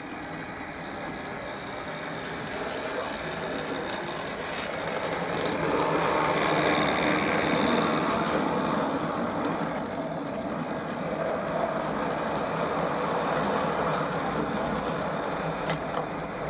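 N gauge model train running along the track past the microphone, getting louder as it passes close about six to eight seconds in, then easing off.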